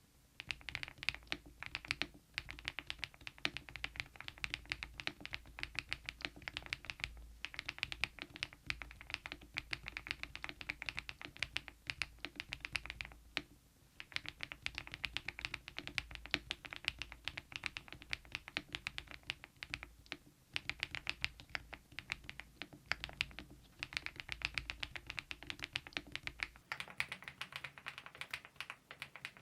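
Continuous typing on a mechanical keyboard fitted with KeyTok Godzilla dye-sublimation keycaps, a dense stream of keystrokes broken by a few short pauses.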